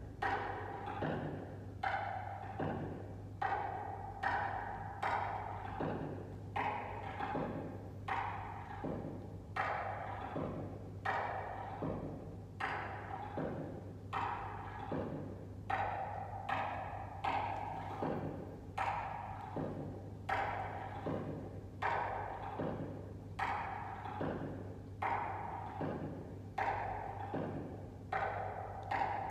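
Steady hula practice beat on hand percussion: hollow wooden-sounding knocks and low thumps, about one strong stroke a second with lighter strokes between.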